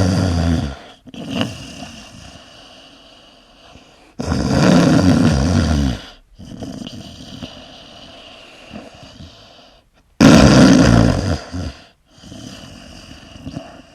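A sleeping person snoring: a loud snore fading out just under a second in, then two more, about four and ten seconds in, each lasting nearly two seconds, with quieter breathing between them.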